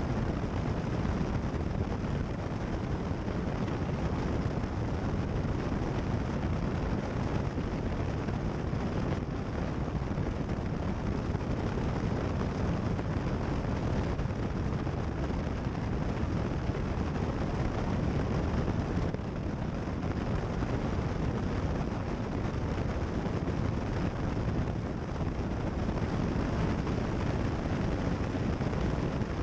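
Steady engine and propeller drone of a Cessna 172 Skyhawk in flight, heard in the cockpit.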